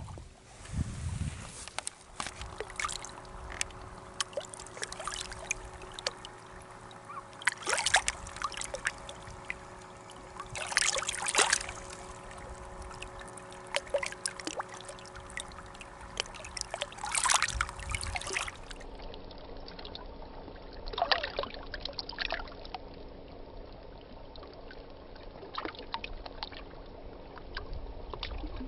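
Water trickling and splashing, with several louder splashes at irregular intervals over a steady low background.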